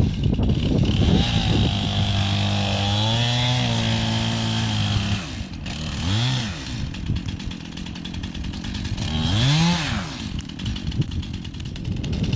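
Two-stroke chainsaw held at high revs for about five seconds, then dropping back toward idle, with two short throttle blips after it.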